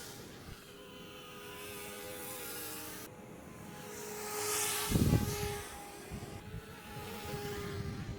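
YXZNRC F06 RC helicopter in flight: a steady electric whine from its motor and rotors that shifts a little in pitch, with a brief loud low rumble about five seconds in.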